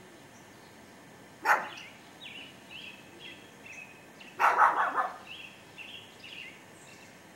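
A small dog barking: one sharp bark about a second and a half in, then a quick run of barks around four and a half seconds. A small bird chirps repeatedly in between.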